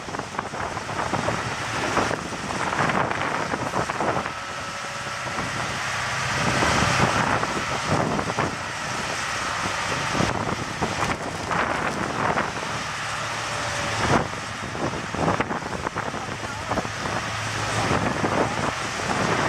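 Off-road vehicle engines running, partly covered by wind buffeting the microphone.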